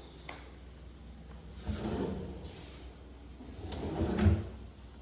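Kitchen cabinet drawer sliding open and then pushed shut, ending in a soft knock about four seconds in.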